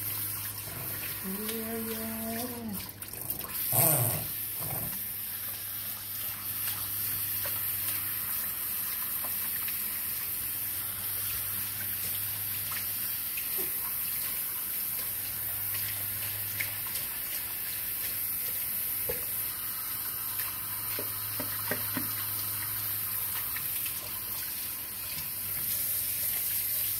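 Water from a kitchen sink's pull-down sprayer hissing steadily as it rinses a wet dog. About four seconds in there is one sudden loud burst of sound.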